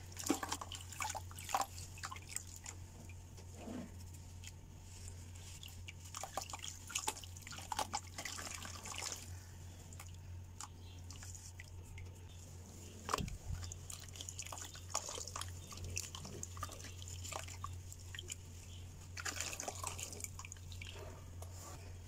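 Wet compressed sand crumbling from a block in the hands and dropping into a bucket of water, with irregular small splashes and plops, busiest near the start, in the middle and again near the end.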